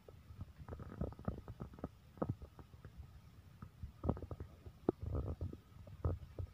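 Irregular low thumps and rumbles of a hand-held phone camera being handled and moved about, knocking on its microphone.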